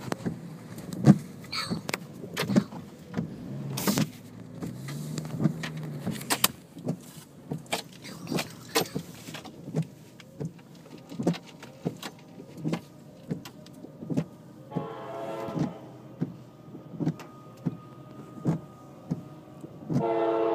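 A train horn blows twice: briefly about three-quarters of the way through, then louder near the end. A string of thumps, about two a second, runs under it.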